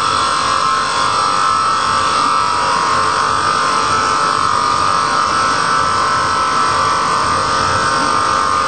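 CNC router spindle running with a steady high whine while its end mill cuts a spinning wooden workpiece turned by a Sherline lathe, with the rough noise of wood being milled.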